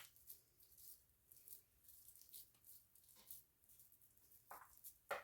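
Mostly near silence, with faint soft pats and light taps of hands shaping chickpea burger mixture into a patty; the clearest taps come near the end.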